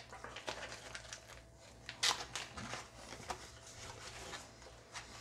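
Clear plastic jerky bag crinkling and crackling as it is handled, in a run of irregular short crackles with the loudest about two seconds in.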